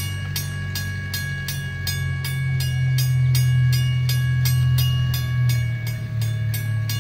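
WCH mechanical railroad crossing bell ringing rapidly, about five strikes a second, each ring lingering into the next. A loud, steady low hum runs underneath.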